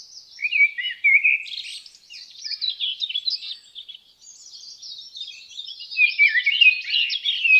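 Several songbirds in woodland chirping and singing together, many quick high notes overlapping, busiest in the last couple of seconds.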